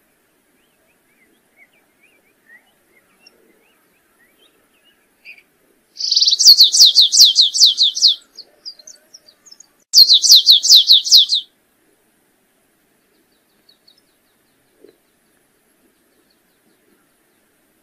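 Canário-rasteiro (stripe-tailed yellow finch) singing: two fast phrases of quickly repeated falling notes. The first runs about two seconds starting some six seconds in, and the second is shorter, about four seconds later. Faint scattered chirps come before and between them.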